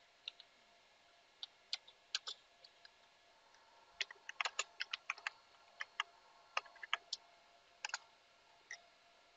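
Computer keyboard keys clicking in short, irregular runs of typing.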